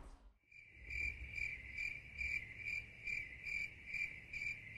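Crickets chirping in a steady rhythm, about two chirps a second, starting about half a second in after the room sound cuts out. It is an edited-in 'awkward silence' cricket sound effect.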